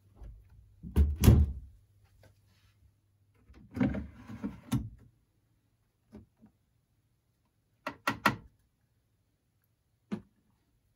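Front-loading washing machine door and loading handling: a heavy thump about a second in, a short clatter of knocks around four seconds, then a sharp double click near eight seconds and a single click near ten.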